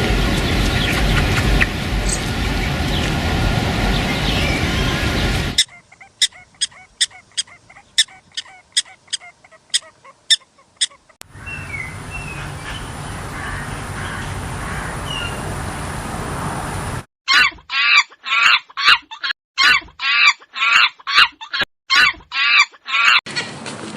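Animal clips cut one after another. There is a loud noisy stretch, then sharp clicks about two a second, then a quieter stretch with a few chirps. Near the end come rapid repeated calls from fowl, about three a second.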